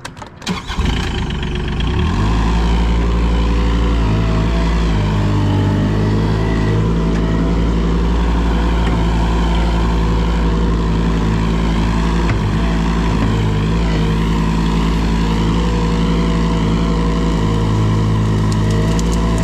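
A large engine starting about half a second in, rising over a second or so, then running at a steady, low-pitched speed.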